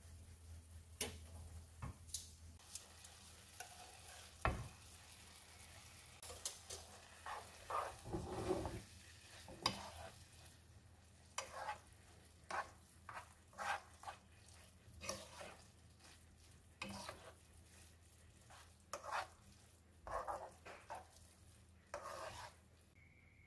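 Spaghetti being tossed and stirred in a creamy sauce in a non-stick frying pan: a run of soft, irregular scrapes of the utensil and noodles against the pan over a faint sizzle, with a single knock about four seconds in.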